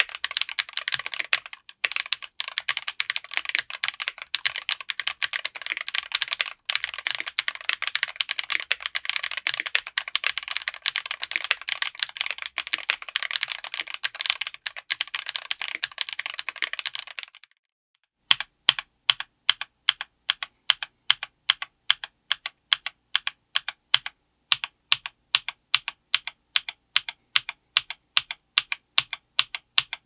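Mechanical keyboard with Akko V3 Cream Black Pro linear switches on an FR4 plate in an aluminium case, with MT3-profile PBT keycaps, being typed on quickly and continuously. About 17 seconds in the typing stops briefly, then gives way to a steady run of separate key strokes, several a second.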